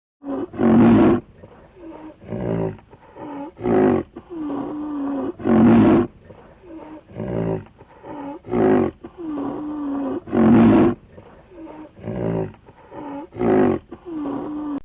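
A big cat roaring: a series of about nine loud calls, roughly one every one and a half seconds, with softer calls between them.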